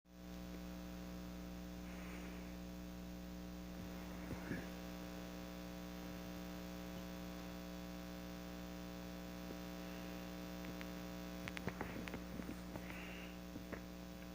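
Steady electrical mains hum, with a few faint clicks and taps about twelve seconds in.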